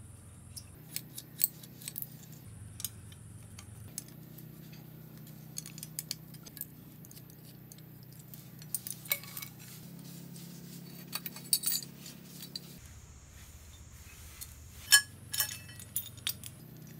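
Light metallic clinks and clicks of an open-end spanner working the bolts of a bicycle handlebar stem clamp, with the loose steel bolts and clamp pieces knocking together, scattered irregularly and loudest near the end.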